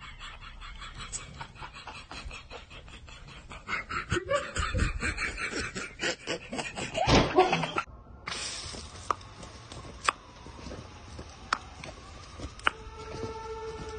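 A person laughing in bursts. About eight seconds in it cuts off abruptly, and a garden hose spray nozzle hisses steadily, with a few sharp clicks.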